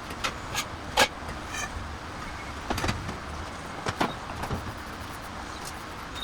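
A scattering of short, sharp knocks and clicks over a steady low hum, the loudest about a second in.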